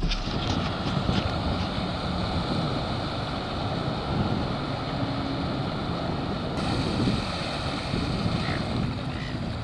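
Boat running on the water: steady motor drone with wind buffeting the microphone and water rushing past.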